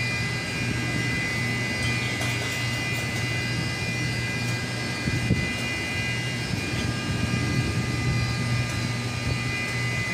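Heavy machinery running steadily, with a constant low hum and a steady high-pitched whine above it.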